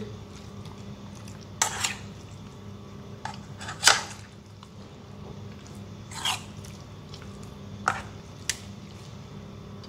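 A hand kneading thick spice paste into raw beef chunks in a pot: soft wet squelches with a few sharper wet smacks, the loudest about four seconds in.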